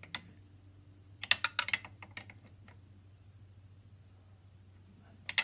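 Wrenches clicking and clinking on a compact router's collet nut as a cove bit is tightened in it: a quick cluster of sharp metal clicks about a second in, a few scattered clicks after, and a pair near the end.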